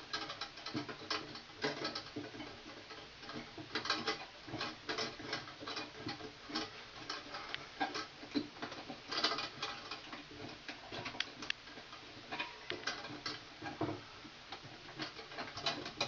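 Irregular small clicks, ticks and scrapes of a green grounding wire nut being twisted by hand onto bare copper ground wires in an electrical box.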